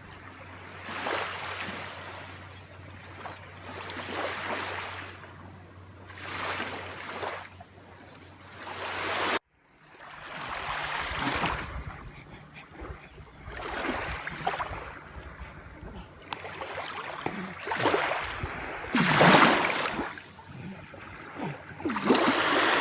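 Sea waves surging and washing onto a beach in repeated swells of surf a few seconds apart. The sound cuts out abruptly for a moment about nine seconds in.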